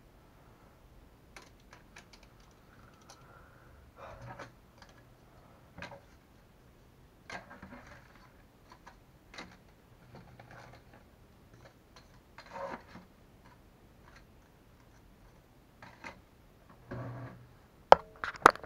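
Small parts of RC shock absorbers and tools clicking and tapping on a workbench, with short rustles of paper parts packets being handled. Two sharp, louder clicks near the end.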